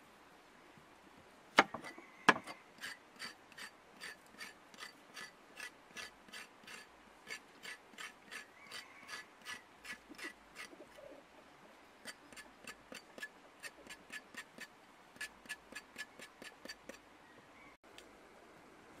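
A large knife blade scraping the skin off a raw carrot in short, even strokes, about three a second, with a brief pause partway through. Two sharp knocks about two seconds in are the loudest sounds.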